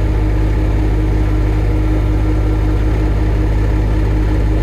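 Bobcat E27 mini digger's diesel engine running steadily, with an even low firing pulse and no change in speed.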